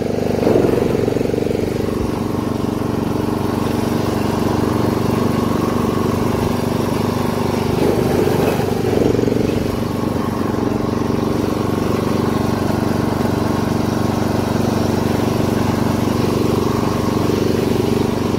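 Castle Garden ride-on lawn mower engine running steadily while the mower is driven along. It swells briefly just after the start and again about eight seconds in.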